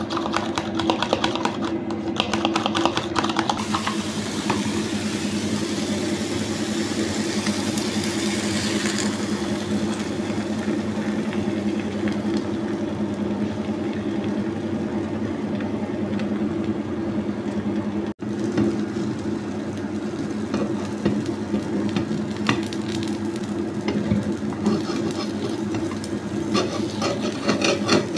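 A fork beating eggs in a plastic tub, rapid clicking against the sides, then the beaten egg sizzling as it cooks in a nonstick frying pan. A steady low hum runs underneath throughout.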